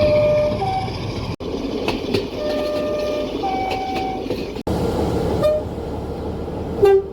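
Two-tone train horns sounding over the running noise of passing trains, in several short clips joined by abrupt cuts. Twice a lower note is followed by a higher one, and near the end a brief higher toot is followed by a short, loud lower note.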